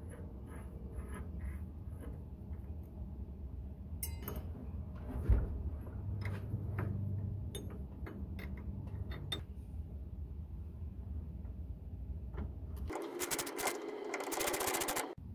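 Hand tools working on a brake hose fitting under a car: small metallic clicks and clinks of a wrench on the fitting, with one sharp knock about five seconds in. Near the end a ratchet wrench clicks rapidly for about two seconds.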